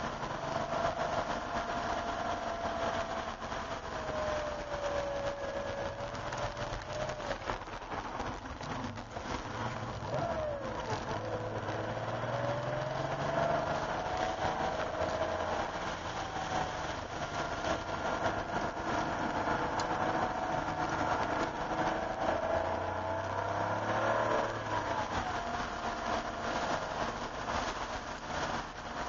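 A 1988 Porsche 911's air-cooled flat-six heard from inside the cabin while being driven hard through corners, its pitch falling and rising again and again as the driver lifts, shifts down and accelerates out, with a sharp jump about ten seconds in. A steady hiss runs underneath.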